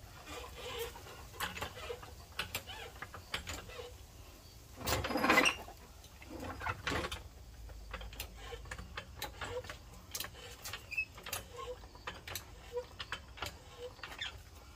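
Light metallic clicks and knocks from a hydraulic floor jack being set under a car's subframe. A louder scraping rustle comes about five seconds in.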